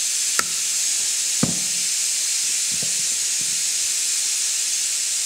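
Sharp metal clicks and knocks of pliers working a stuck, fluid-slick piston in a motorcycle brake caliper, the loudest about a second and a half in, then a few fainter knocks. A steady hiss lies under them.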